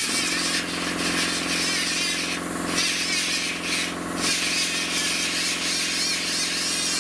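Die grinder running steadily while grinding rust off sheet metal on a car body. The high grinding hiss eases off briefly twice, about two and a half and four seconds in, as the tool is lifted or shifted on the metal.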